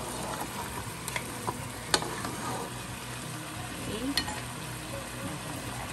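Beef ribs, tomato and onion sizzling in a steaming pot while being stirred, with a utensil knocking against the pot a few times; the sharpest knock comes about two seconds in.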